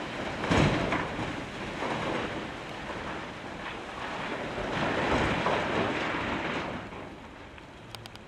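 Blasted rock pouring and tumbling out of a Volvo L260H wheel loader's side-dump bucket into a dump trailer, a heavy rumble of stones with the loader's engine running underneath. The load comes in surges, loudest about half a second in and again around five seconds, and dies away near the end as the bucket empties.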